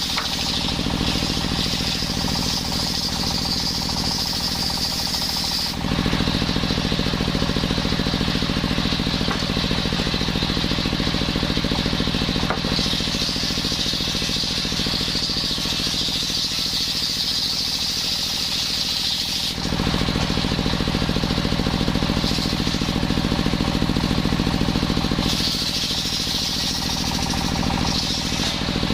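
A machine-driven circular saw sawing coconut wood, running with a steady low chugging hum. The sound shifts every several seconds, a higher hiss joining and dropping away about four times.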